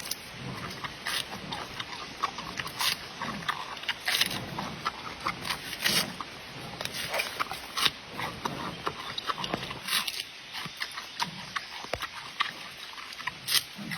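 Giant panda sounds: irregular crackling clicks with short low sounds recurring about once a second.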